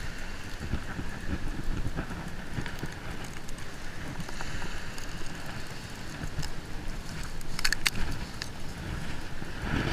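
Wind buffeting and fabric rubbing on a body-worn camera's microphone as the angler moves on the sand, with a short rattle of clicks about three-quarters of the way in.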